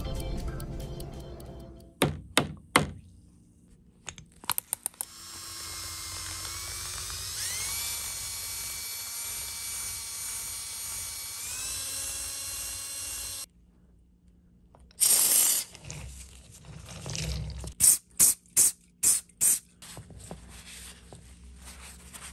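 Electric drill spinning a cast-iron caster wheel, running steadily for several seconds with its pitch stepping up twice before it cuts off. A few sharp knocks come before it, and a run of short hissing bursts after it.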